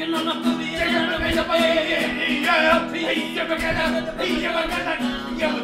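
Music with a singing voice.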